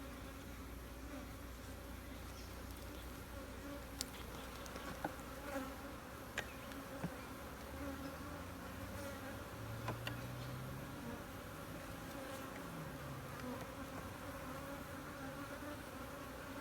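Honeybee colony buzzing steadily from an open hive, with single bees flying close by in rising and falling drones near the middle. A few light, sharp knocks sound over the hum.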